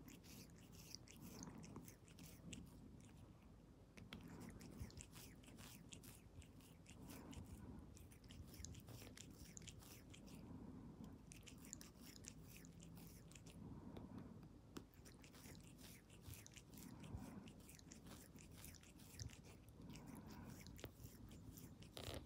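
A cat licking its paw while washing its face: quick, faint, wet tongue clicks that come in runs with short pauses between them.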